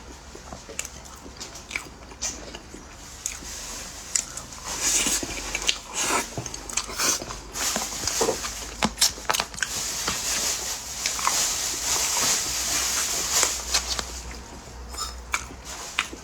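Close-miked eating: a person biting and chewing, with many short wet clicks, thickest through the middle of the stretch.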